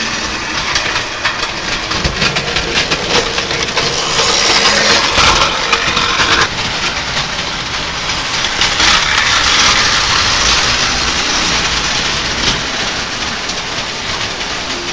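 Märklin gauge 0 tinplate model trains running on metal track: a loud, dense rattle of small metal wheels and mechanism.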